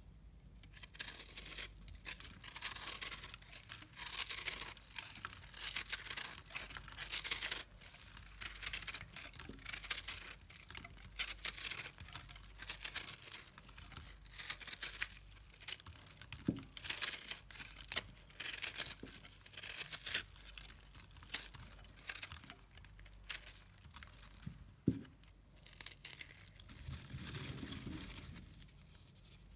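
Brittle microwaved dry soap crunching and crackling in dense, irregular dry bursts, with two sharper snaps, one just past halfway and one near the end.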